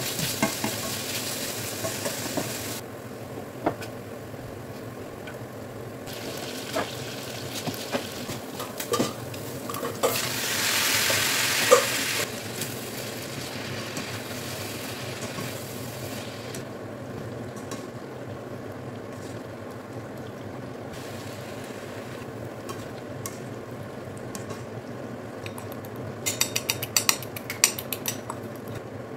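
Diced bacon sizzling in a nonstick pan, with a spatula scraping and knocking against the pan as the food is stirred and tossed. The sizzle surges louder for a couple of seconds about ten seconds in, and near the end comes a quick run of clicks and taps.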